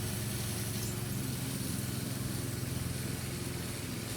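Steady low mechanical hum over a background hiss, unchanging throughout.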